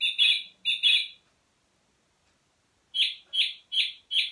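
Recorded song thrush song played through a bird wall clock's speaker. A quick group of four high notes, a pause of about a second and a half, then a run of short notes repeated about two or three times a second.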